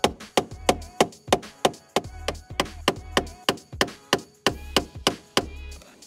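Background music with a steady percussive beat of about three sharp hits a second over a pulsing bass.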